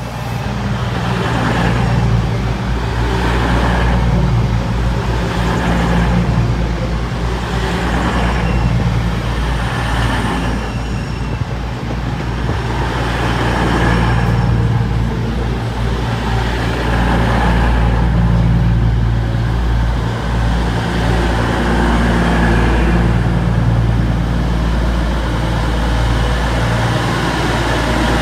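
Diesel train running at close range, its engines giving a steady low drone that swells about every two seconds. It grows louder over the first two seconds as the train comes near.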